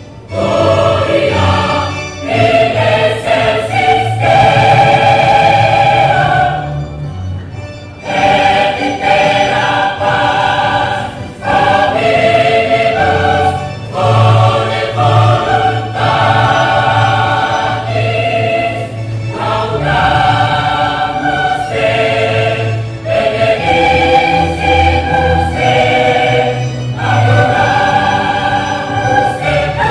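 A choir singing in several-part harmony, in long held phrases, with a short break about seven seconds in.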